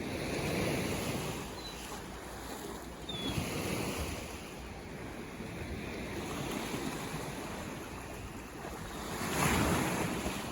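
Ocean waves breaking and washing on the shore, swelling and ebbing in surges, with the biggest wave near the end. Two faint short chirps sound early on the noise.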